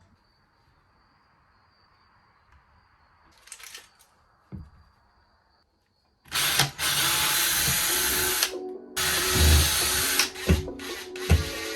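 Power drill running in several bursts of one to two seconds each, starting about halfway through, with short pauses between them. Music with a steady beat comes in near the end.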